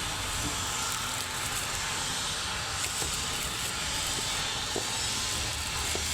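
Steady rumble and hiss of nearby road traffic, with a few faint clicks.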